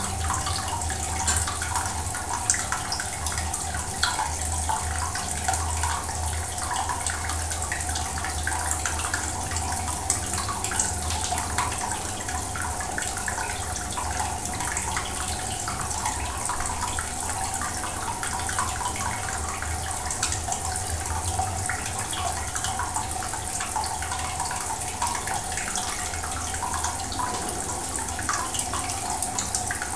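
Water running and trickling steadily in an aquarium, with many small splashes and a low hum underneath.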